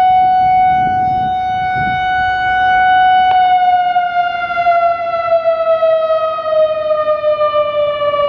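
ASC I-Force STI-3200 electronic warning siren sounding a loud, steady tone during its test. About three seconds in there is a short click, and the pitch then begins sliding slowly downward.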